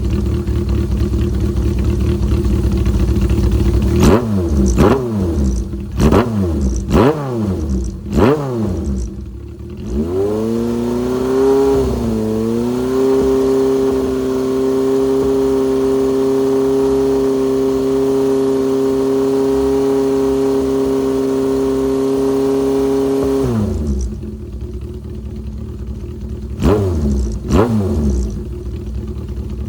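Honda CB750 Four's air-cooled inline-four idling through a Yoshimura straight-cyclone short exhaust with a silencer baffle fitted. About four seconds in it is blipped five times in quick succession and settles back to idle. About ten seconds in the revs climb and are held steady for about ten seconds, then drop back to idle, with two more quick blips near the end.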